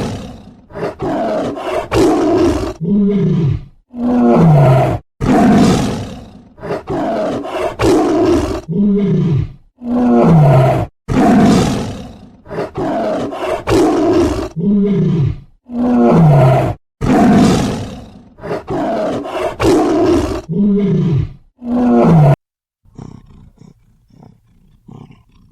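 A big cat roaring and growling over and over, loud calls a second or two apart, many falling in pitch. They stop abruptly about 22 seconds in, leaving only faint low sounds.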